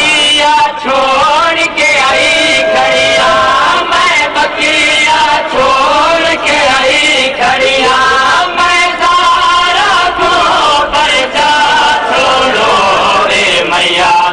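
A man chanting a noha, a Shia mourning lament, in a long melodic line that bends and wavers in pitch.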